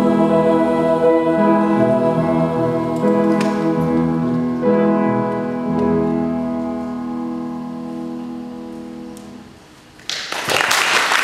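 A choir with piano accompaniment sings the closing chords of a sacred choral anthem, held chords that change every second or two and then die away. About ten seconds in, applause breaks out.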